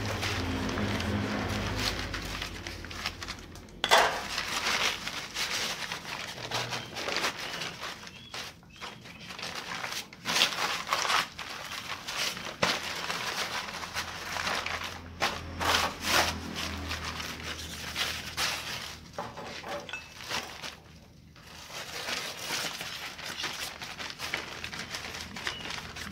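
Heavy paper cement bag being handled and folded by hand, crinkling and rustling irregularly with occasional sharper crackles.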